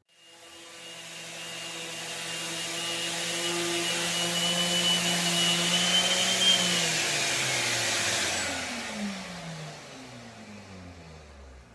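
Electric random orbital sander starting up and sanding a black walnut board flush, then switched off about six and a half seconds in, its whine falling in pitch as it spins down.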